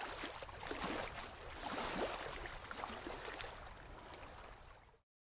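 Shallow lake water splashing irregularly around a person's legs as he wades out toward the shore. The splashing cuts off suddenly about five seconds in.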